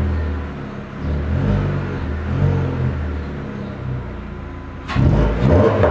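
Peugeot 206's 1.6 16v TU5JP4 engine running through a sports rear muffler, a low exhaust note that swells slightly with light revs. Near the end a sudden, much louder sound cuts in.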